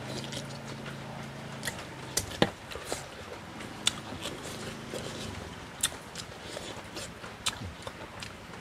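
Close chewing and lip-smacking of a person eating frog curry by hand, with many short wet mouth clicks scattered throughout. A low steady hum is heard in the first two seconds and briefly again around the middle.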